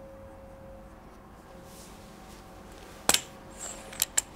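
Sharp mechanical clicks from handling a spring-powered break-barrel air rifle and its gun-mounted lamp: a loud double click about three seconds in, then two lighter clicks near the end.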